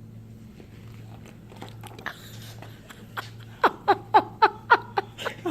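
A child laughing: a run of about eight short pitched bursts, about three a second, beginning about three seconds in, over a steady low electrical hum.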